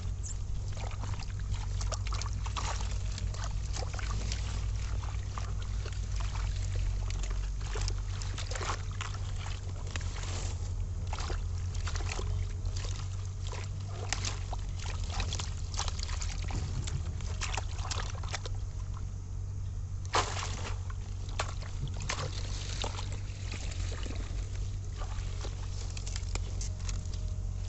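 Hands sloshing and splashing in shallow muddy water, with irregular crackles and snaps of water hyacinth stems and roots being pulled apart, over a steady low rumble.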